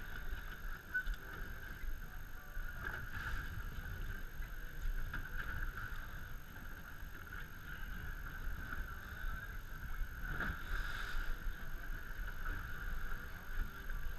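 A boat's motor running steadily at low speed, a low rumble under a constant whine, with faint water and wind wash, as the boat chases after a hooked tarpon.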